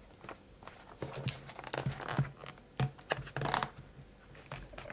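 Product packaging being torn and crinkled open by hand: a run of irregular rustles and scrapes.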